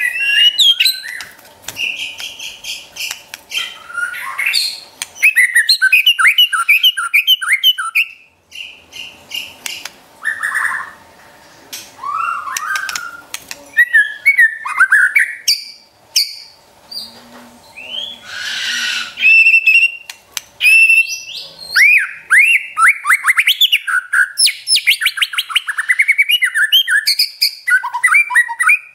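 White-rumped shama singing a long, varied song: loud whistled phrases and fast rattling runs of repeated notes ('trotol'), in bursts with short pauses between.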